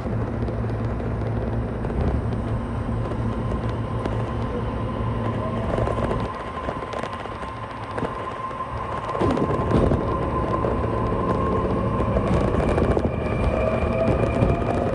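JR Joban Line electric train running with a steady low rumble and a steady whine. In the last few seconds a motor whine rises in pitch as the train speeds up.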